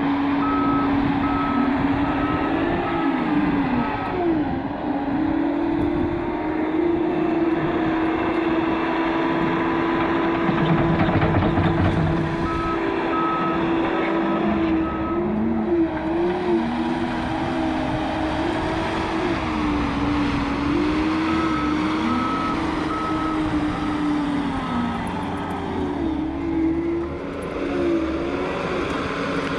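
John Deere 331G compact track loader's diesel engine running, its pitch rising and dipping again and again as it works the dirt, with its backup alarm beeping in three spells as it reverses.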